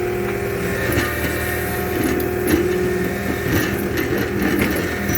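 Skid steer engine running steadily, driving a post-hole auger that is grinding against rock in the hole, with irregular knocks and scraping from about two seconds in.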